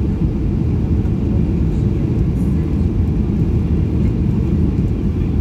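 Steady low rumble of a Boeing 737-800 in flight, heard inside the passenger cabin: engine and airflow noise.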